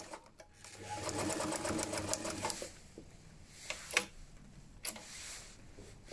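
New Home Janome Sailmaker sewing machine running fast through a thick strap, a quick even run of stitches for about two seconds that then stops, followed by two sharp clicks about a second apart.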